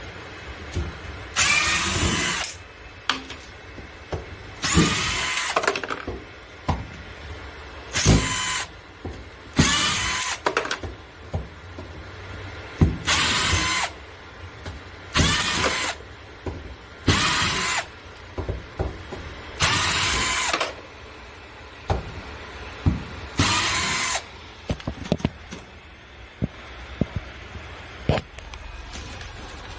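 Power drill running in short bursts of about a second, about nine times, with light clicks between them, backing screws out of a school bus's metal interior side panels.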